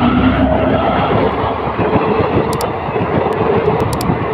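Passenger train coaches running past close by, a steady loud rumble of wheels on the track.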